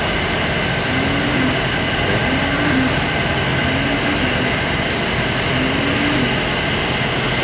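Large barn ventilation fan running, a steady loud drone with a few constant tones in it. A faint low tone rises and falls four times behind it.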